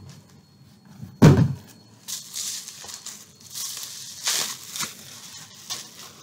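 A single dull thump about a second in, then repeated crinkling and rustling of plastic bubble wrap as a wrapped package of books is pulled out and unwrapped by hand.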